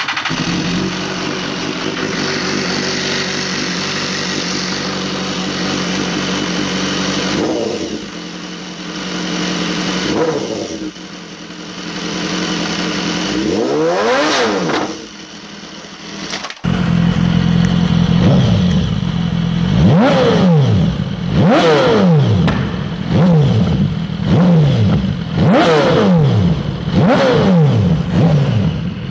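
BMW S1000RR inline-four through a new Racefit exhaust can, running at a steady idle and then revved three times, the third rev highest. After an abrupt cut, the same engine through its earlier TaylorMade exhaust is revved in sharp blips, about one every one and a half to two seconds.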